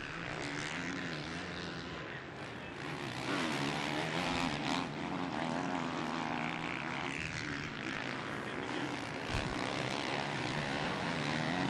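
Engines of 450-class motocross bikes on track, their pitch rising and falling as the riders rev, shift and back off through the course.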